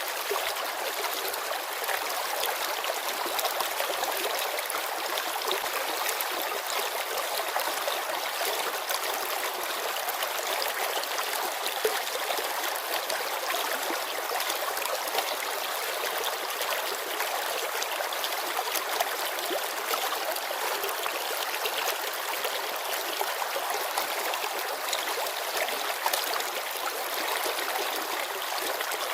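Shallow mountain river babbling over stones: a steady rush of water with small splashes and gurgles throughout, mostly high and bright with little low rumble.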